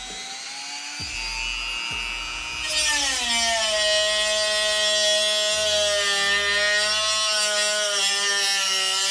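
Handheld Dremel-style rotary tool with a cutoff wheel running at high speed with a steady whine. About three seconds in it gets louder and its pitch drops as the wheel bites into a plastic pipe and cuts under load.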